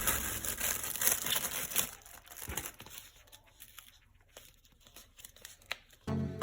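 Plastic packaging crinkling and tearing as toy parts are unpacked, dense for about two seconds, then quieter with a few light clicks and rustles.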